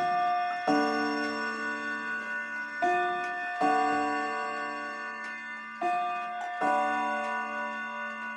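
1976 Jantar wall clock striking on its chime rods: three two-note pairs about three seconds apart, each a higher note followed by a lower one, with the rods ringing on between strikes.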